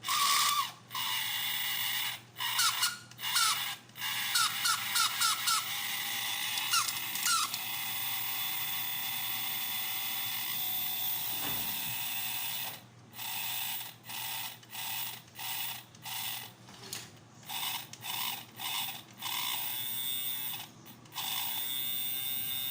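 Small electric motor and gear train of a toy horse-racing game running, freshly oiled, with a ratcheting mechanical whir and short chirps during the first several seconds. Later it starts and stops in short bursts about once a second, then runs steadily again near the end.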